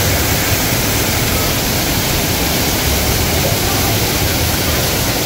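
Steady, loud rush of water falling over an artificial rockwork waterfall, an even hiss with a low rumble underneath.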